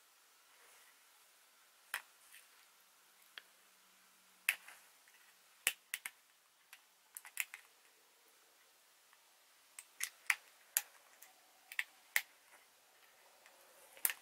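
Irregular small sharp clicks and ticks of fingers and fingernails working at the clear plastic bezel and capsule housing of a Silva baseplate compass while feeling for the thin wire that holds the housing together.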